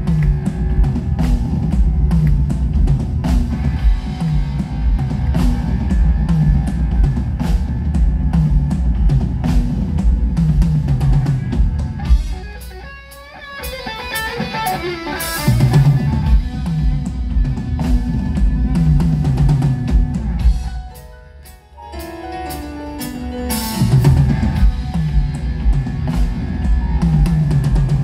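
Live rock band playing an instrumental passage: a steady drum-kit beat and bass under electric guitar. The band drops back briefly twice, about halfway through and again about three quarters through, and the second break leads into a descending run of notes.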